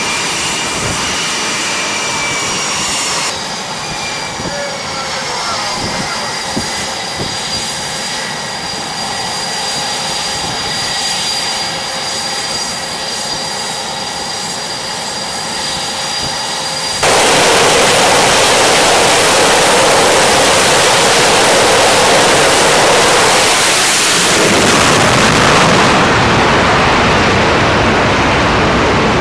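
F/A-18 Super Hornet jet engines whining steadily with high, held tones, then about halfway through a sudden jump to a much louder full-power jet noise, as when a fighter's engines run up for a catapult launch.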